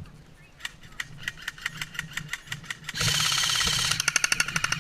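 Airsoft guns firing on full auto: a rapid rattle of shots, swelling about three seconds in into a dense, louder burst, then continuing as a fast stream of about a dozen shots a second.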